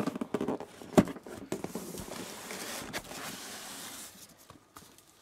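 Cardboard box and inner packaging being handled, rustling and scraping with scattered clicks and one sharp knock about a second in. The noise dies down after about four seconds.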